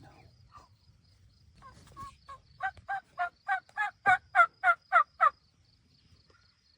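A run of about a dozen turkey yelps, each note breaking from a lower to a higher pitch, about four a second and growing louder before stopping abruptly.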